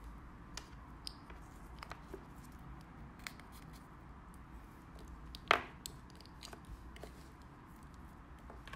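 Small clicks and taps of plastic powder jars and acrylic nail tips being handled on a table, with one louder knock about five and a half seconds in.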